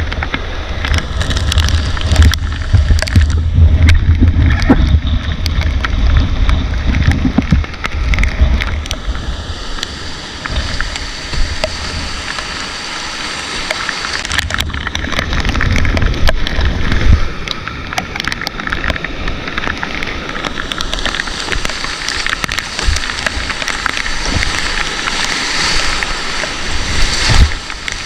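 Whitewater of a fast river rushing and sloshing around a canoe, with frequent short knocks and splashes. A heavy low rumble runs through roughly the first third.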